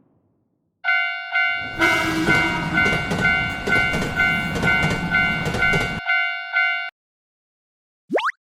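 Railroad crossing alarm bell ringing at about two dings a second, starting about a second in. A train rumbles past under it for about four seconds. The bell stops shortly after the train has gone, and a quick rising swoop sounds near the end.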